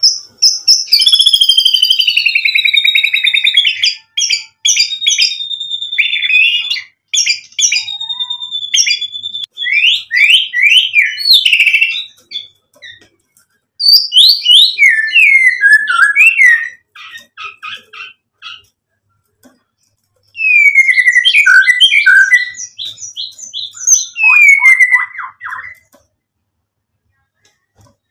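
White-rumped shama singing in full song, its varied repertoire of learned imitations (isian). It sings in bursts of clear whistled phrases, fast repeated notes and downward-gliding calls, with short pauses between them.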